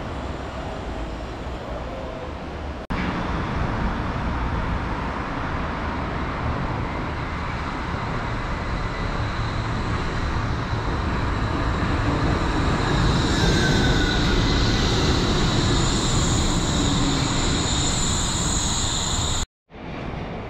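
Wuppertal Schwebebahn suspended railway car running, a steady noise of its steel wheels on the overhead rail that jumps louder abruptly about three seconds in and grows further, with a high whine coming in about two-thirds through. The sound cuts out for a moment just before the end.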